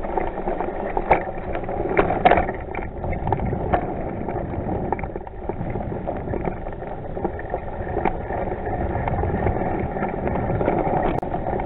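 Bicycle rolling over a rough dirt trail: steady tyre and rolling noise with frequent rattles and knocks from the bike.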